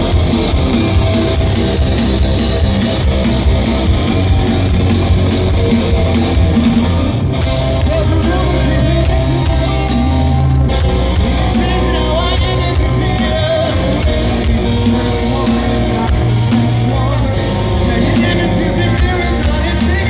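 Live rock band playing loud, with distorted electric guitars, bass and drums, and some singing heard over it.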